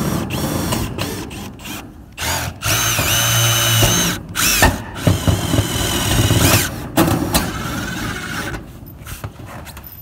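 Cordless screw gun driving roofing screws into corrugated metal sheeting, the motor whining in several bursts of one to two seconds each.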